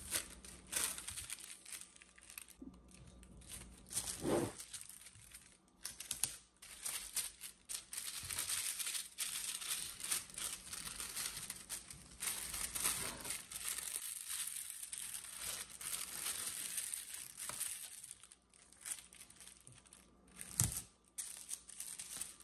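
Tissue paper crinkling and rustling as it is folded and pressed around stretched canvases. Tape is pulled off a dispenser to seal the wrapping, with a few louder sharp strokes.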